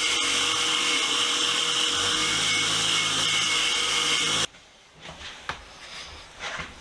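Motor-driven wire wheel running steadily while a rusty steel wrench is held against it to strip rust and pitting. The noise cuts off abruptly about four and a half seconds in, leaving a few faint clicks and handling knocks.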